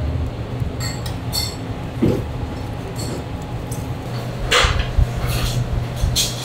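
Dishes and utensils clinking and clattering at irregular moments, over a steady low hum of kitchen machinery.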